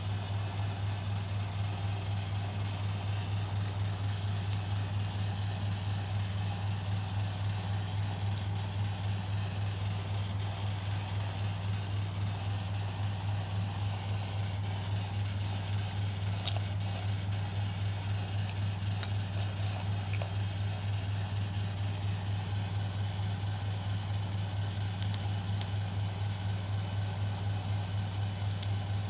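Washing machine motor running with a steady low hum, with a few faint clicks in the second half.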